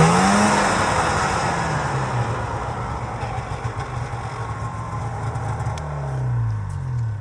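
Snowmobile engine revving high as the sled sits stuck in deep snow, then easing down to a steady lower running. It revs briefly again about six seconds in and falls off.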